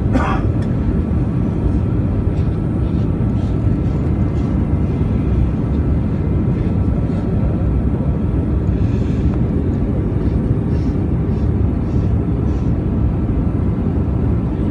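Airbus A320's IAE V2500 turbofan engines and the airflow over the fuselage, heard as a steady low roar inside the passenger cabin during the approach to landing. A brief higher-pitched sound comes right at the start.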